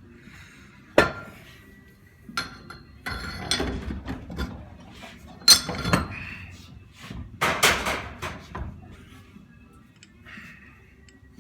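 Metal tools knocking and clanking against the metal parts of a Graco Fireball air-operated pump being taken apart, a series of sharp irregular knocks with the loudest about five and a half seconds in. The part being worked on is stuck.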